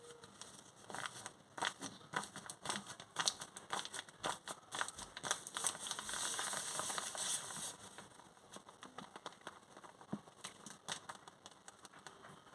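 Crinkly packaging handled by hand: irregular crackles, crinkles and small taps, with a longer, denser rustle about six to seven and a half seconds in.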